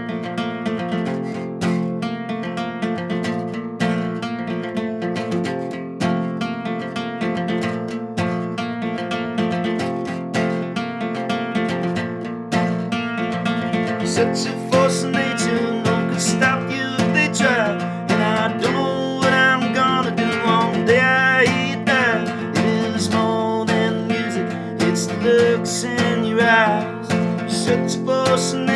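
Acoustic guitar strummed and picked in a song's instrumental intro. From about halfway through, a second melody line with bending, wavering pitch joins over the chords.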